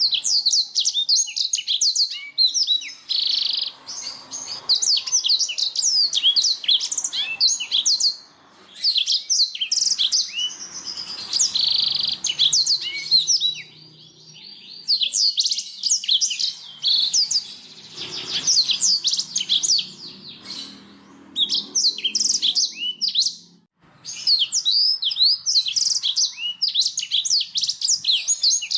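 Canary singing: long phrases of rapid high chirps and trills, broken by short pauses every few seconds.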